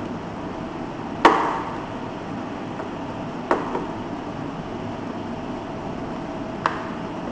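Three sharp clicks a few seconds apart over a steady hiss. The first is the loudest, with a short ringing tail.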